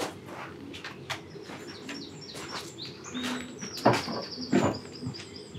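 Garden birds chirping and whistling at dusk, with a quick run of high repeated notes about four seconds in. Two sharp wooden knocks come about four and four and a half seconds in.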